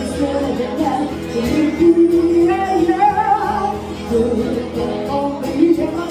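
A woman singing with two acoustic guitars strummed behind her, played live. She holds a long, higher note about three seconds in.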